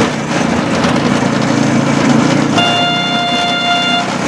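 Small engine of a homemade rail draisine running steadily as it travels along the rails. About two and a half seconds in, a single steady high-pitched horn note sounds for about a second and a half.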